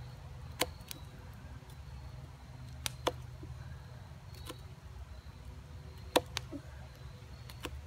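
LT Wright Bushcrafter HC carbon-steel knife carving a notch into the end of a green stick for the bowstring: sharp, irregular clicks as the blade bites into the wood, about seven of them, the loudest about six seconds in. A steady low rumble runs underneath.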